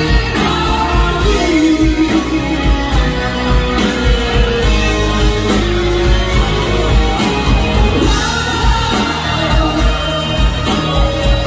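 Live rock band playing electric guitar, bass guitar and drums with a steady beat, with a sung vocal over it, heard from within the audience.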